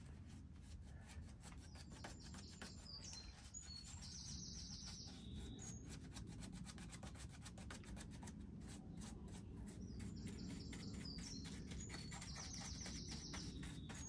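A paintbrush scrubs and dabs acrylic paint into a textured fibreglass surface in a quick run of faint, scratchy strokes. A bird sings a short high phrase twice in the background, about three seconds in and again about ten seconds in.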